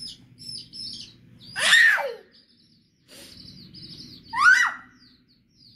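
Baby chicks peeping: a run of short, high cheeps, with two louder sliding squeals about two seconds and four and a half seconds in.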